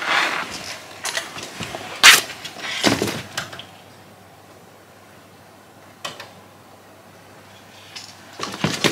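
Hotel room door being opened and pushed in, with one sharp click about two seconds in. Bags rustle and bump around it, there is a fainter click a few seconds later, and it is quiet in between.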